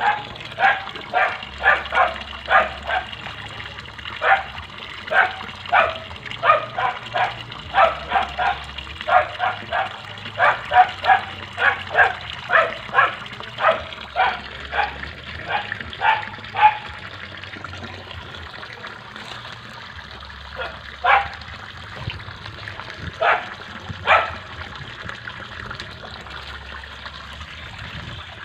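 A dog barking repeatedly, about two barks a second, then a few scattered barks after a pause, over the steady rush of running water.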